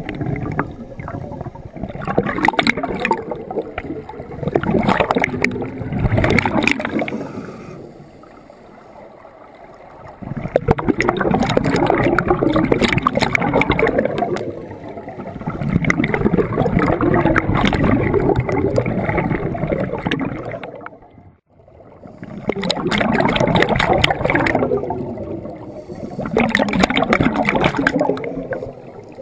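Scuba regulator breathing underwater: exhaled air bubbling out in repeated long surges of several seconds, with quieter gaps between breaths.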